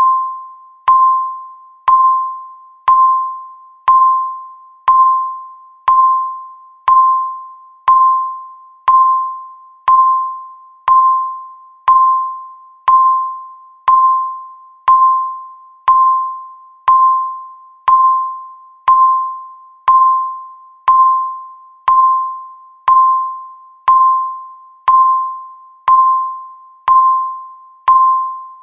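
Countdown timer's electronic tick: a short ping at one steady pitch with a sharp click at its start, sounding once a second, each dying away before the next.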